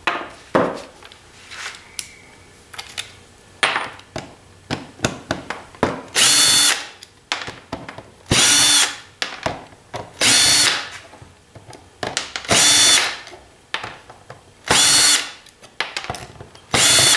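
Cordless drill-driver with a Torx bit backing screws out of a CPAP machine's case: six short whirring runs, each under a second and about two seconds apart. Before them come several seconds of clicks and knocks as the driver is set on the screws.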